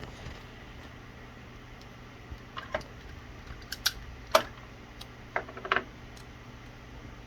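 Electrical tape being pulled off the roll and wrapped around spliced Cat5e wires: three small clusters of short crackles and clicks with a brief squeak, over a steady low hum.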